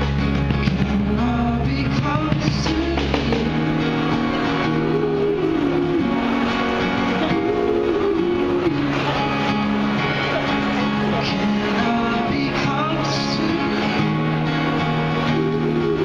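Live street band playing a song: strummed acoustic guitar and a sung melody over keyboard and drums. A deep held bass note drops out about three and a half seconds in.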